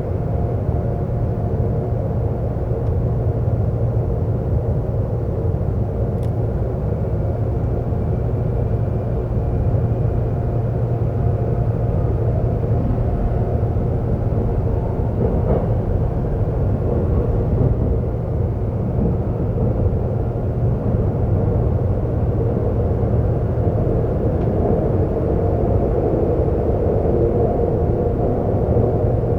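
Seoul subway train running: a steady, continuous rumble of wheels and motors on the track, swelling slightly near the end.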